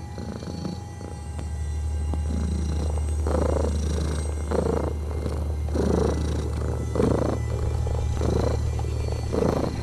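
Domestic cat purring, swelling and fading about once a second with each breath, over background music.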